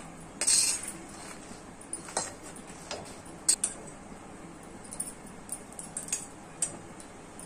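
Steel spoon scraping and clinking against an iron kadai as roasted dry red chillies are scooped out, with a short scrape about half a second in, followed by scattered light clicks and ticks.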